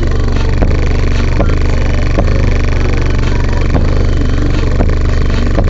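12-inch Sony Xplod subwoofer in free air, driven hard by an 800 W amplifier, pumping out a loud, deep, continuous bass line with a beat hit about every 0.8 seconds.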